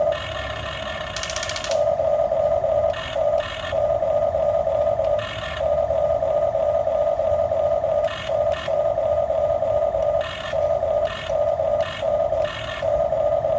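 Electric gear motors of a Top Race TR-211 remote-control toy backhoe loader whining at one steady high pitch, stopping and starting again and again in runs of about half a second to two seconds.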